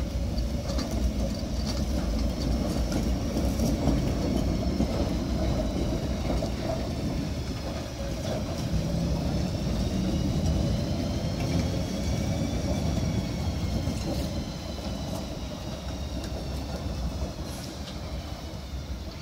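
Historic Hansa-Waggonbau tram rolling slowly over depot track and points, a steady low rumble with scattered clicks from the wheels. Through the middle, a high squeal of several tones slowly rises and falls in pitch as the wheels take the curved track.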